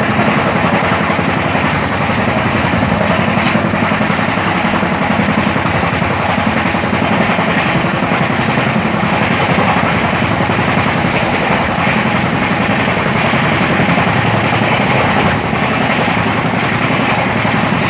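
Passenger train running at speed, heard from an open window of one of its coaches: a loud, steady rush of wheels on rails and passing air.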